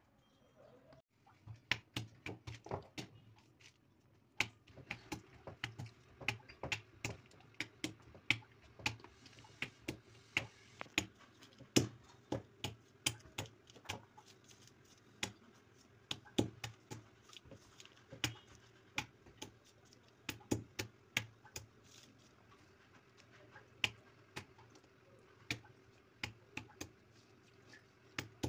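Pestle knocking down on green olives one after another to crack them open, a sharp knock each time, irregular, about two a second, starting about a second and a half in.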